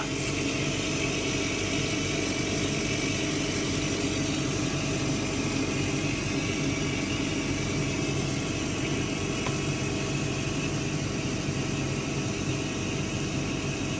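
Laser cutter's fume extractor fan running steadily: a constant whirring rush of air over a low hum.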